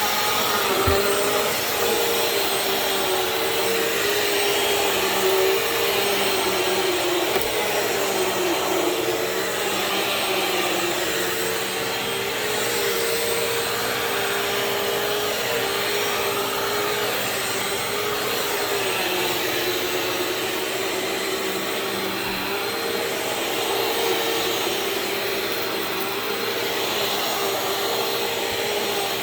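Bissell CleanView Swivel Pet (2252) bagless upright vacuum cleaner running steadily on carpet, its motor tone wavering slightly in pitch now and then.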